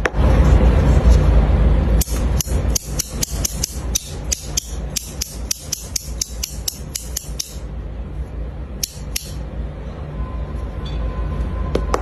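Small anodized metal fidget discs being handled: a low rumbling noise for about two seconds, then a quick run of sharp metallic clicks, about four a second, for some five seconds, and two more clicks a little later.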